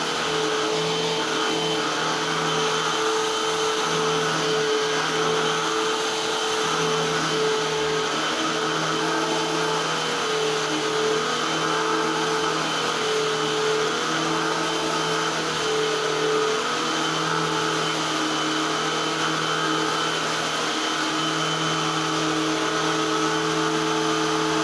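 Eureka AirSpeed Unlimited Pet vacuum cleaner running steadily, a constant motor hum and airflow rush with a thin high whine.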